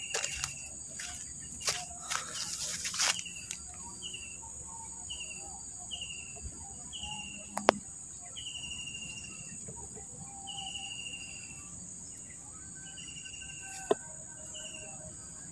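Outdoor insect chorus, a steady high buzz, with a bird repeating short falling whistled notes about once a second. A few rustles and clicks in the first three seconds, and two sharp ticks later.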